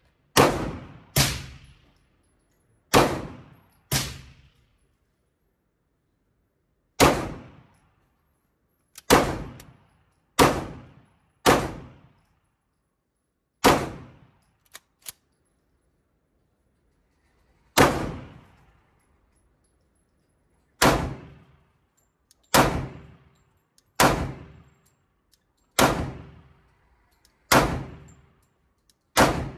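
Glock 21 Gen 5 pistol in .45 ACP fired one round at a time, about sixteen shots spaced one to three seconds apart, each shot dying away in a short echoing tail.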